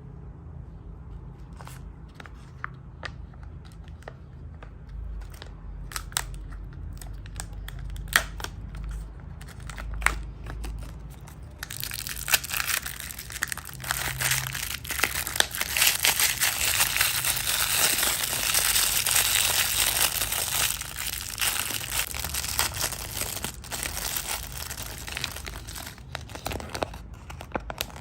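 Wrapper crinkling as surprise eggs and candy are unwrapped by hand. There are scattered crackles and taps at first, then from a little before halfway it becomes continuous, dense crinkling that tapers off near the end.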